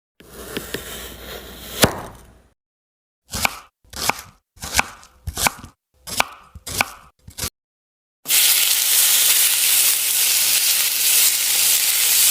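Cartoon sound effects: a rustling patch ending in a sharp knock, then a run of short chopping strokes, about one and a half a second, then a steady loud hiss from about eight seconds in.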